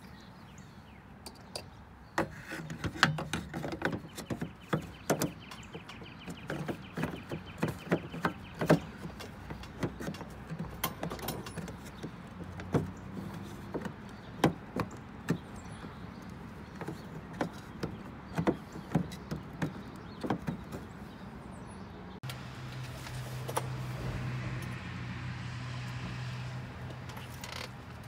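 Replacement exterior door handle being worked into the door of a 1997 Lexus ES 300: irregular clicks and knocks of its plastic housing and metal lock mechanism against the door's sheet metal. About three-quarters of the way through the knocking stops and a steady low hum takes over.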